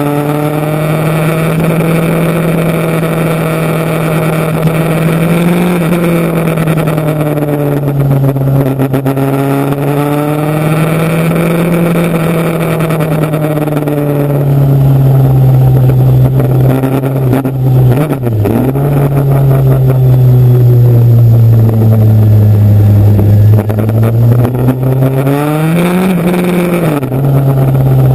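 Motorcycle engine running under way, its pitch slowly rising and falling with the throttle. About 18 seconds in it dips sharply and recovers, and near the end it climbs and then drops.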